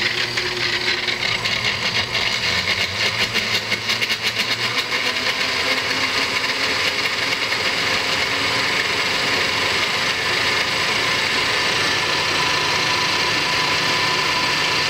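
Countertop blender motor running on a low setting, chopping a frozen block of orange juice concentrate in hot water. For the first few seconds the ice chunks rattle against the blades and jar, then it settles into a smoother, steady whir as the ice breaks down.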